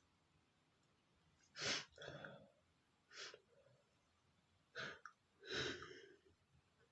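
A man's held-back sneezes and sharp breaths: a short, loud burst about a second and a half in, several smaller ones after it, and another loud one near the end.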